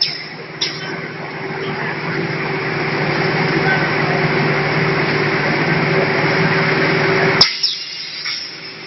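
Shrink-wrap packing machine's heat tunnel running: a steady fan rush over a low hum that grows gradually louder, then cuts off abruptly with a click about seven and a half seconds in. A couple of light knocks come near the start.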